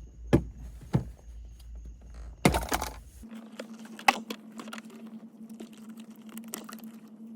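Plastic interior trim of a Honda S2000 clicking and snapping: two sharp clicks and a short rattle as the center console is pulled up from its clips. After that comes a faint steady hum with scattered light ticks of handling.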